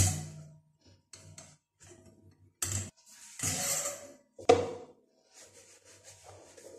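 Scattered clinks and knocks of a metal wire cutlery stand and a cutlery cup being handled and set down on a stone countertop, the loudest knock about four and a half seconds in, with a brief scraping rustle just before it.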